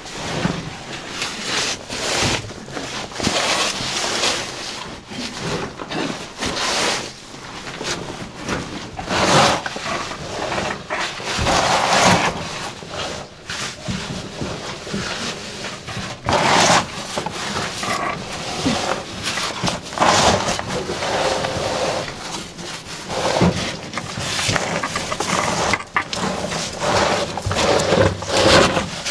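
A caver crawling through a tight, low cave passage: the oversuit and a caving tackle bag scrape and rustle over rock and mud in irregular bursts of effort, with strained breathing.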